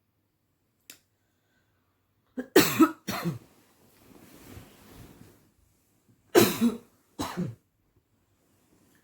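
A person coughing: a double cough about two and a half seconds in and another double cough about four seconds later, with a faint hiss between them.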